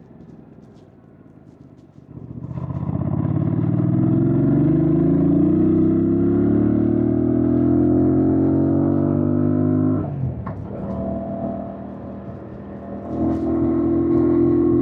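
2025 Yamaha MT-07's 689 cc crossplane parallel-twin engine under way. It runs off throttle with a falling note, then opens up about two seconds in and pulls hard with steadily rising pitch. Near ten seconds the note breaks off sharply, as at a gear change or closing the throttle, and it comes back on the throttle near the end.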